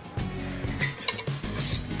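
A steel spoon clinks and scrapes against an aluminium pot as ghee is dropped in. Then fingers rub the ghee around the inside of the pot to grease it. Background music plays throughout.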